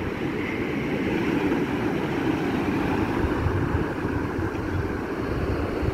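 Surf breaking and washing over a rocky reef flat at low tide: a steady rush of waves, with wind buffeting the microphone as a fluctuating low rumble.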